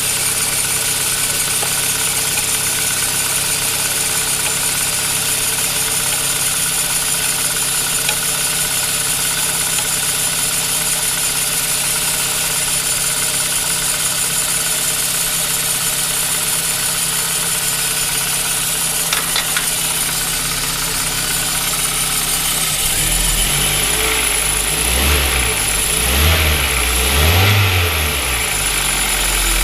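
Kia Ceed 1.6 petrol four-cylinder engine idling with its alternator and accessory drive belt squeaking, still slipping after being tightened two turns. In the last several seconds the low engine sound swells and falls unevenly.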